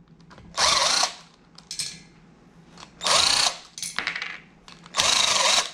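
A handheld power tool run in three short bursts, each about half a second, the last a little longer.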